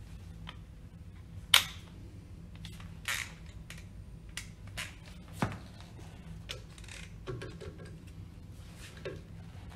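Metal hand tools clicking and clinking: a socket wrench and extension bar being picked up and fitted onto the bolts of a pump's split coupling. Scattered sharp clicks and knocks, the loudest about a second and a half in, with a run of small clicks near the end, over a low steady hum.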